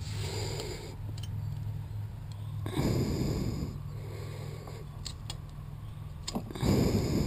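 A person breathing close to the microphone, with two louder breaths, one about three seconds in and one near the end, over a steady low hum.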